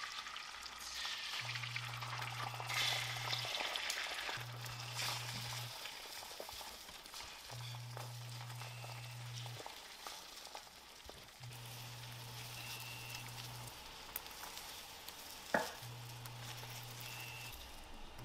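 Beaten egg sizzling in hot oil in a nonstick pan as it is poured in and spread with a silicone spatula. The sizzle is loudest at the start and eases as the egg sets. A low hum cuts in and out every couple of seconds, and there is one sharp tap about two-thirds of the way through.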